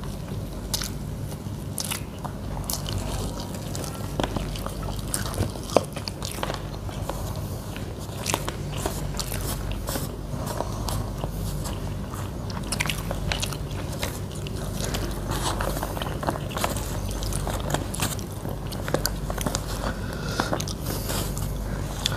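Close-up eating sounds from a meal of rice with sambal: chewing and crunching, with many small irregular clicks and smacks.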